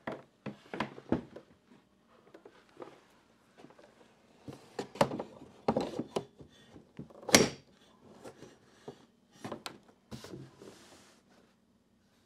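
Handling noises from unpacking: a string of knocks, rustles and thumps as the Starlink dish on its stand and the router are set down on a table and cable is pulled from a cardboard box. The loudest thump comes about seven seconds in.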